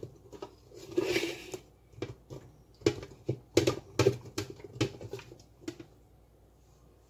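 Chopped celery and pineapple pieces tipped into a blender jar: an uneven run of knocks and patters as they land, with a brief rustle about a second in, dying away about six seconds in.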